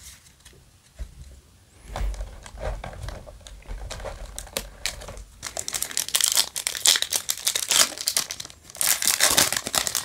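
Yu-Gi-Oh! booster pack's foil wrapper being crinkled and torn open by hand, a dense crackling that comes in two loud stretches in the second half, after a few seconds of quieter card handling.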